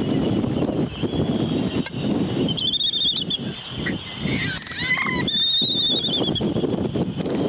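Laysan albatrosses courtship dancing, giving two high, wavering calls with a short falling call between them, over a steady rumble of wind on the microphone.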